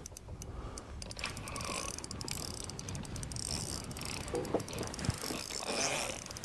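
Fishing reel clicking rapidly and steadily as a hooked fish is reeled in.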